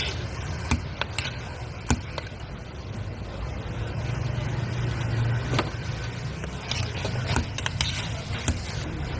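A steel spoon clinking and scraping against a stainless-steel bowl as a chickpea mixture is stirred, with sharp clinks every second or two. Under it runs a steady low rumble of road traffic.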